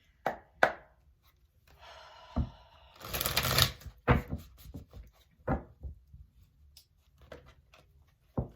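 Tarot cards being handled on a table: a series of light taps and clicks, with a brief rustle of cards sliding about three seconds in.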